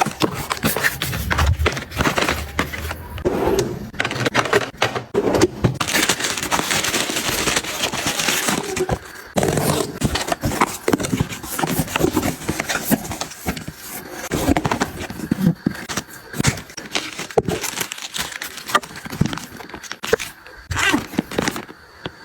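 Household items being handled and set down: a steady run of clicks, taps and scrapes, with a stretch of rustling hiss about six seconds in.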